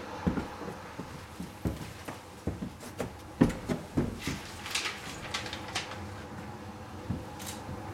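Footsteps and shuffling of several people on a wooden floor, a string of irregular knocks and thuds, with paper rustling about halfway through as sheets are picked up from the floor.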